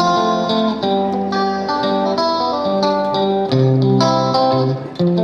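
Background music led by plucked guitar, notes and chords changing every second or so.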